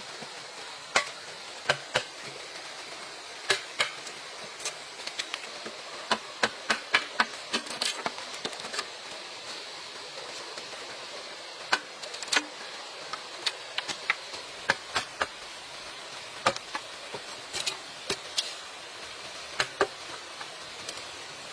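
Irregular sharp knocks and taps of hand tools striking bamboo, in uneven clusters with gaps, over a steady high hiss.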